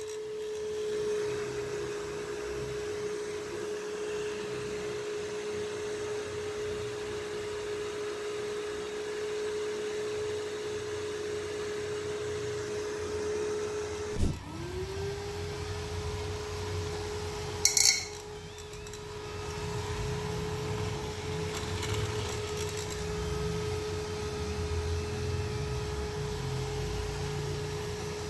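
Small 12 V DC motor fitted into an old PC cooling fan's frame, running with a steady high whine. About halfway through there is a click and the whine drops, then rises quickly back to pitch as the motor spins up again; a brief sharp rattle follows a few seconds later.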